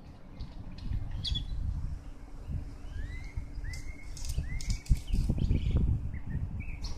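Small birds chirping: scattered calls, with a run of three short upswept chirps from about three to four and a half seconds in, over a steady low rumble.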